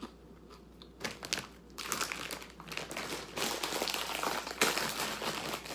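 Crinkling of a plastic snack bag being handled, beginning about a second in and running on as dense crackling.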